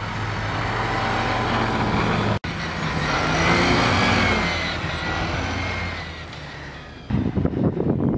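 Snowmobile engine running at speed as the sled drives past, its pitch rising and then falling as it goes by and fading. About seven seconds in a louder, choppier engine sound starts as the snowmobile churns through deep snow toward the camera.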